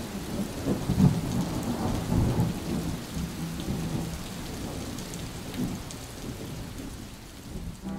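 Thunderstorm: steady heavy rain with rolling thunder. The rumbling dies down after the first few seconds and the rain fades out toward the end.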